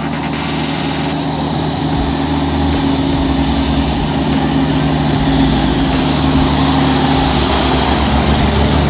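Diesel engine of an International tractor-trailer hauling a loaded shipping container, running steadily and growing louder as the truck approaches and passes close by, with a low rumble under a steady engine drone.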